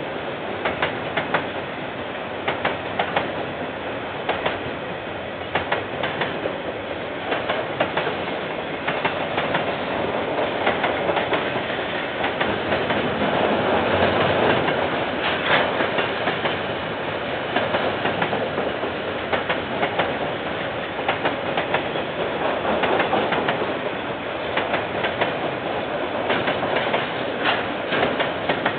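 KiwiRail train wagons rolling past, wheels clacking over the rail joints in a steady run of clicks over a continuous rumble, a little louder about halfway through; heard through a security camera's microphone.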